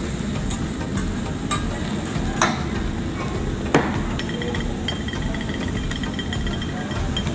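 Food sizzling on a hibachi teppan griddle, with three sharp clinks of a metal spatula on the steel plate as the vegetables are pushed about, the loudest nearly four seconds in.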